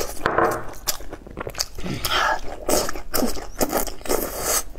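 Close-miked eating: wet chewing of soft, sauce-covered food, with repeated mouth clicks and smacks.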